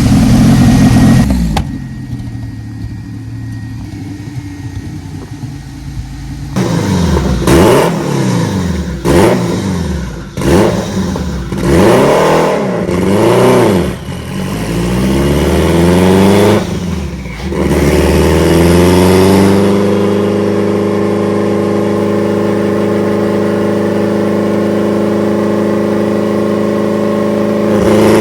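Honda-swapped Toyota MR2's engine revving: loud for the first second or so, then quieter. From about six seconds in it blips up and down in quick rises and falls over and over. Near the twenty-second mark it climbs and holds a steady pitch.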